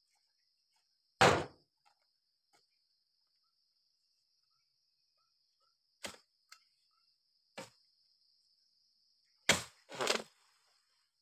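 Oil palm harvesting dodos, a chisel blade on a long pole, chopping into the base of the palm's fronds: a loud whack about a second in, then several more strikes in the second half, the last two close together. A steady high buzz of insects runs underneath.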